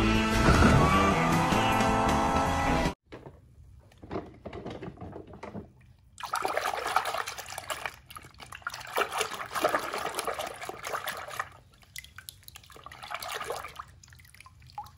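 Film score music for about the first three seconds, cutting off suddenly. Then water sloshing and splashing in a plastic tub in uneven bursts as a hand swishes a die-cast toy car through the soapy water.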